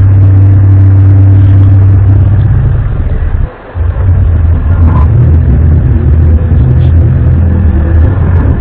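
A loud, steady low drone, of the kind posted as mysterious 'sky trumpet' sounds. It breaks off briefly about three and a half seconds in, then resumes.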